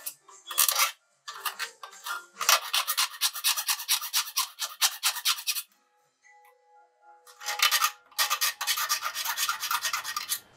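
A hand tool scraping and rasping against a hard surface such as metal, in quick runs of strokes with short breaks and a longer pause a little past the middle.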